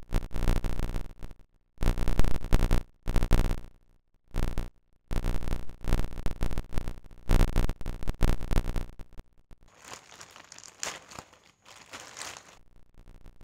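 Grey plastic courier bag crinkling and rustling as it is handled and pulled open, in several loud spells with short pauses, softer over the last few seconds.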